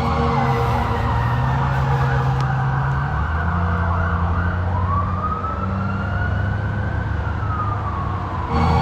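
Police car siren in a slow wail. Its pitch sinks over the first few seconds, climbs again about five seconds in and falls once more near the end, over a steady low rumble.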